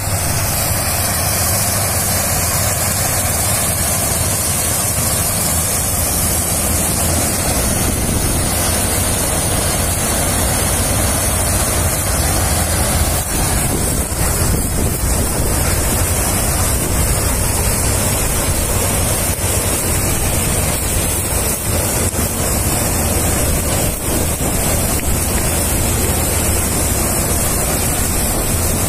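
KS 9300 combine harvester running steadily while cutting wheat, its engine and threshing machinery making a loud, even din. Wind buffets the microphone.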